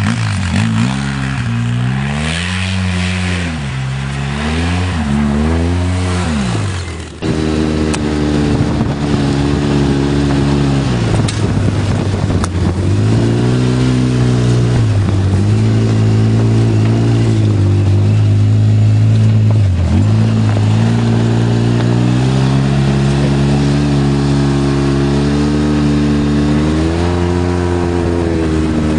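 Polaris RZR 800 side-by-side's twin-cylinder engine being driven on snow, revving up and down in repeated swells. After about seven seconds it is heard from on board, louder and steadier, easing off twice and rising again near the end.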